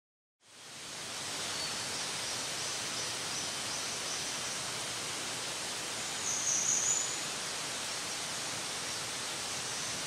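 Steady outdoor forest ambience, an even hiss that fades in about half a second in. Faint high thin tones sound in the background, and a brief, louder high-pitched sound comes about six and a half seconds in.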